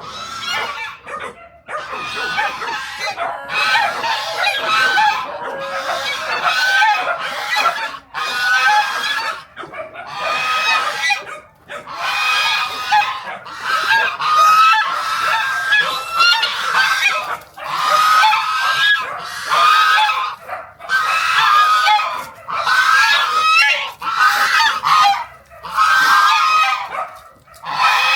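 Domestic geese honking almost without pause, with several birds' calls overlapping.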